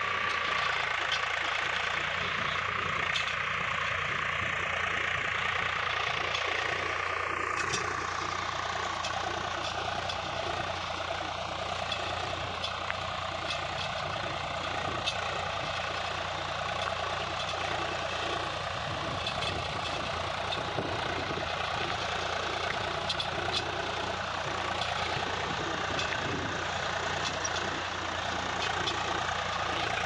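Swaraj 843 tractor's three-cylinder diesel engine running steadily under load while it pulls a disc plough through hard, dry soil.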